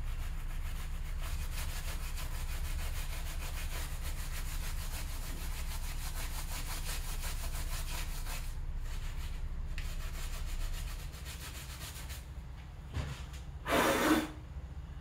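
Fast back-and-forth hand scrubbing of the aluminium engine block's deck surface with a blue cloth, steady for about eleven seconds and then quieter. Near the end, a short loud puff of breath blown onto the block to clear the debris, in place of compressed air.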